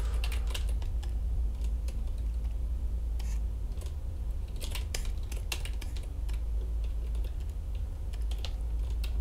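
Irregular clicks from a computer mouse and keyboard, a few at a time with short gaps, over a steady low hum.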